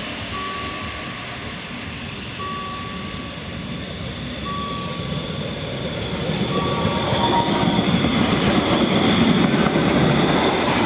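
Electric low-floor tram running past on its rails, louder over the second half, with a thin high wheel squeal. A level-crossing warning tone beeps about every two seconds.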